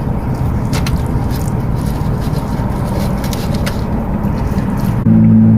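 Someone chewing tender, fatty beef brisket, with a few faint mouth clicks over a steady low rumble. Near the end a louder, steady low hum starts.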